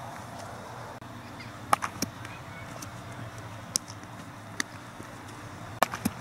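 Baseball infield practice: a handful of sharp knocks as the ball pops into leather gloves on throws and catches, with two quick pairs of knocks among single ones.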